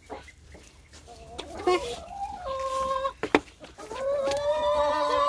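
Backyard chickens calling: a short held note about halfway through, then a long drawn-out wavering call near the end. A single sharp knock comes between them.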